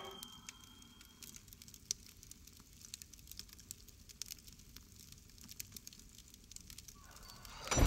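Faint, scattered crackling and popping from food cooking in pots over a fire, with a low hiss underneath.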